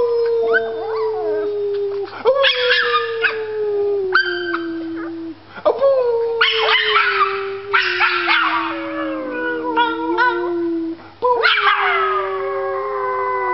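A puppy howling along with a woman who is howling too: four long howls, each falling slowly in pitch, with short breaks between them and higher puppy cries over the top.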